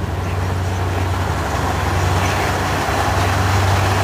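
Pacific Surfliner passenger train passing, a steady rumble of its bi-level cars on the rails that grows louder over the first couple of seconds, then holds.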